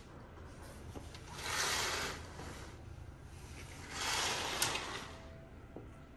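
Floor-length curtain pulled aside by hand: two swishes of fabric sliding, about two and a half seconds apart, the second with a small click.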